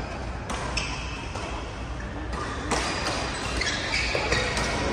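Badminton doubles rally: sharp racket hits on the shuttlecock a few times, with short high squeaks of court shoes on the hall floor.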